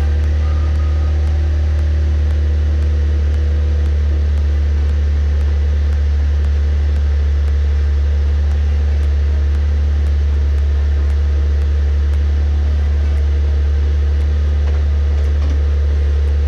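Saab 9-3 Turbo X's 2.8-litre turbocharged V6 idling steadily just after being started, freshly filled with new oil.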